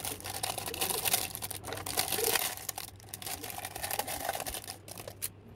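Rapid crackling and clicking of plastic as a projector headlight unit in clear protective film is pushed and worked by hand into a plastic headlight reflector housing. It eases off near the end.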